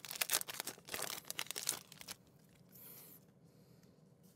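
Foil booster-pack wrapper of Pokémon trading cards crinkling and tearing as the pack is opened, for about the first two seconds, followed by a brief soft swish and then quiet.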